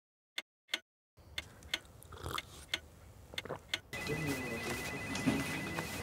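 Clock ticking, a tick-tock about once a second. About four seconds in the ticking stops and a steady high electronic tone with a faster pulsing beep above it comes in over room noise.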